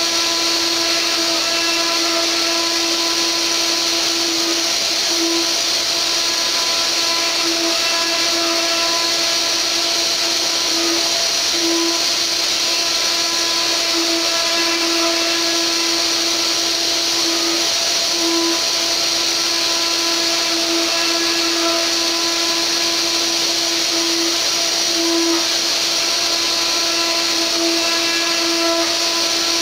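Mini CNC router's spindle milling a wood relief with a 4 mm radiused carving bit: a steady whine with overtones over a constant hiss of cutting.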